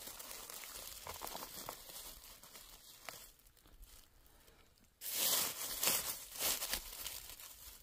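Dry beech leaf litter rustling and crackling under a hand as a porcino is worked out of the ground. About five seconds in, a sudden louder burst of rustling comes as the hand brushes through the leaves.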